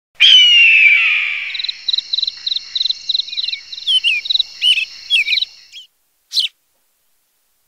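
Nature sound effect of crickets and birds: a loud falling whistle-like call opens it, then crickets chirp in an even pulse of about four a second with bird chirps over them. It stops about six seconds in, with one last short chirp after.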